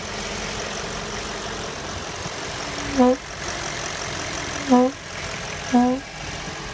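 Audi A8 4.2 V8 idling while its broken crankcase ventilation valve gives short, humming hoots, three times at uneven intervals. The hooting is the sign of the faulty breather valve.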